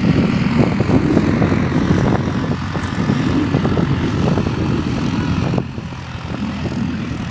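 ATV engine running hard at high revs under heavy load in a mud bog run, easing off about five and a half seconds in.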